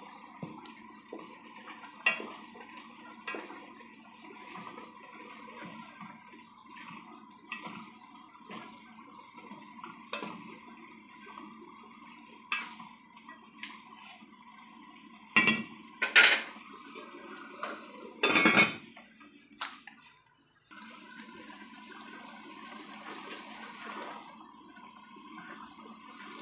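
Wooden spatula scraping and knocking against a granite-coated frying pan while cabbage, carrots and chicken are stir-fried over a steady frying hiss. The knocks come every second or two, with the loudest cluster about fifteen to nineteen seconds in.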